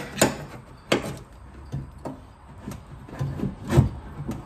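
Irregular knocks and scraping rubs as a Corvette C3's door window glass and loosened regulator are forced up by hand, the power window motor being dead. About nine uneven knocks, the loudest near the end.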